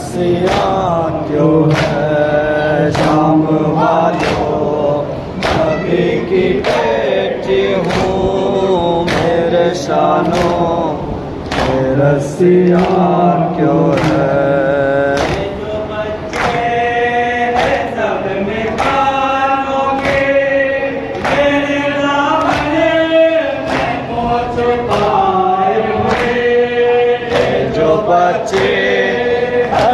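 A Shia noha (Urdu mourning lament) sung by male reciters into a microphone, with the crowd of mourners chanting along in chorus. It is kept in time by a steady rhythm of sharp slaps as the mourners beat their chests with their hands (matam).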